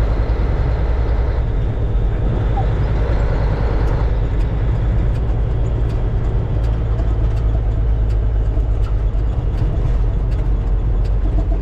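Diesel truck engine running steadily, heard from inside the cab.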